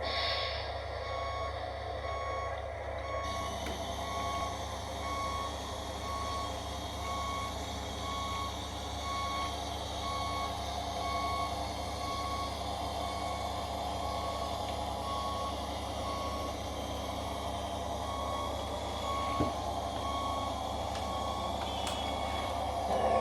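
RC truck's Beier sound module playing a reversing alarm: an even beep about once a second, over its simulated diesel truck engine running steadily.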